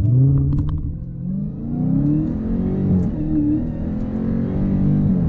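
2020 Dodge Challenger Hellcat's supercharged V8 at full throttle on a 0-60 mph launch, its note jumping up at the start, then climbing and dropping back at each upshift. It is running in the black key's 500-horsepower limited mode.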